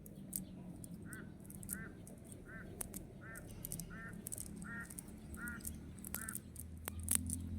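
A bird calling in a steady series of eight short, nasal calls, roughly one every 0.7 seconds, over scattered sharp clicks and a low hum.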